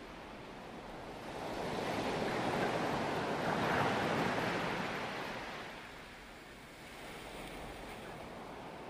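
Ocean surf heard from water level: the rush of breaking waves and whitewater swells over a couple of seconds to a peak near the middle, then fades to a lower wash.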